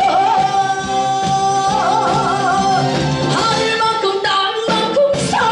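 A woman singing a Korean trot song into a microphone over amplified backing music. She holds one long note through the first couple of seconds, then sings a wavering note with vibrato.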